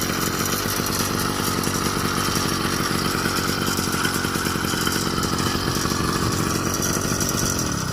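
Stock 49cc bicycle engine kit running steadily at idle, its pitch dropping near the end as it winds down and shuts off.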